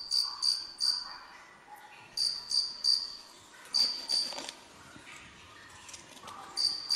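Cricket chirping in short runs of two to five chirps, about three a second, with pauses of a second or more between runs.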